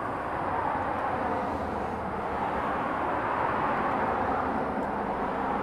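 Steady rush of road traffic from a busy road, swelling slightly in the middle and easing again.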